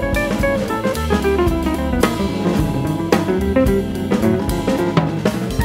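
Background music with guitar and a drum kit, played at a steady level with a regular beat.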